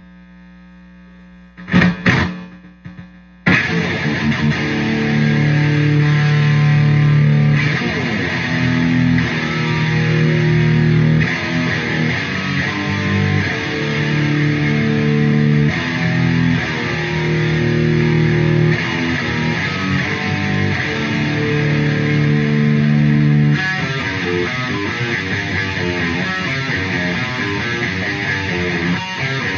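Electric guitar played through a Marshall Valvestate 8100 amp head and a Fryette speaker cabinet. A steady amp hum comes first, then a couple of quick strums, then held chords and riffs, switching to a quicker, choppier riff about 24 seconds in.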